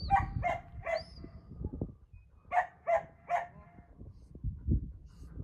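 A dog barking in two quick sets of three short barks, with wind rumbling on the microphone.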